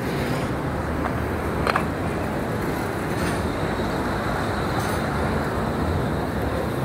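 Street traffic: a steady rumble of passing cars and motorcycles, engines and tyres on the road, with one short sharp click a little under two seconds in.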